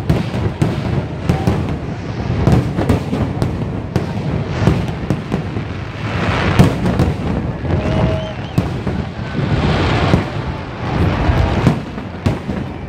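Fireworks display: a dense, continuous barrage of bursting shells, many bangs overlapping over a deep rumble with crackling.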